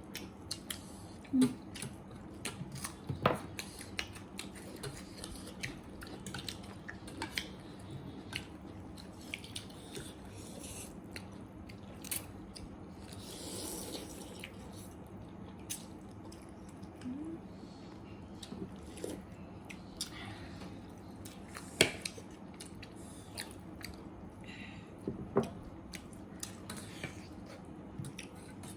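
Close-miked mukbang eating sounds: chewing and biting, with sharp clicks and taps scattered throughout, the loudest a few seconds in and twice near the end.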